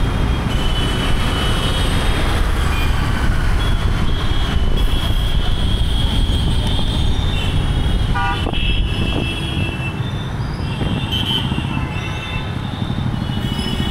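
Street traffic from a moving vehicle, picked up by an action camera's internal microphones. A steady low rumble of wind and road noise runs under several blasts of vehicle horns.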